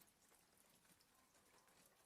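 Near silence: very faint rain tapping lightly on a window, a soft hiss with scattered small ticks.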